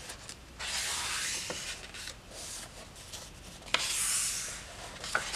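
Thick pages of a hardback coloring book being turned by hand: two rustling page turns, about half a second in and near four seconds in, the second starting with a sharp snap of paper.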